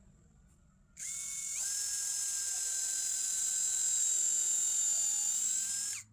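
An electric drill-driver's motor whining steadily as it drives a screw to fasten a coffee-table leg, starting about a second in, stepping up in pitch shortly after and stopping suddenly near the end.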